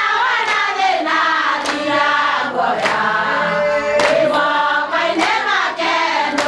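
A group of women singing together as a choir, keeping time with a sharp hand clap about every second.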